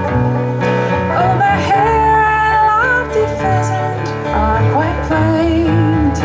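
Live band playing a country-style song: guitar over a stepping bass line, with a lead melody that holds notes and slides between them.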